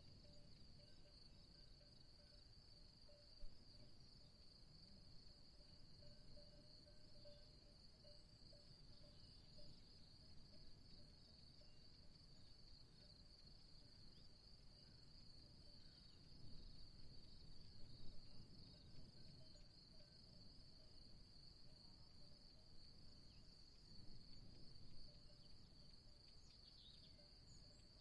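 Faint, steady high-pitched insect chirring over a low rumble that swells for a few seconds about midway.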